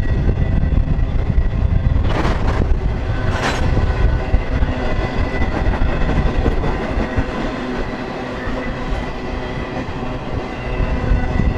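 Intermodal freight train cars rolling past: a steady low rumble of steel wheels on rail with a thin, steady high whine. A few sharp metallic clanks come about two to three and a half seconds in.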